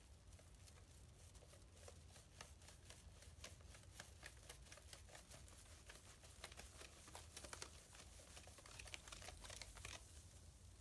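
Lush Big Blue bath bomb fizzing in bath water inside a metal sieve: faint, dense crackling and popping of bubbles that thins out near the end.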